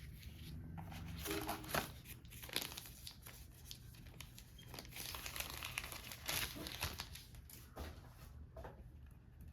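Packaging crinkling and rustling as it is handled and opened, in irregular bursts with a few sharper crackles.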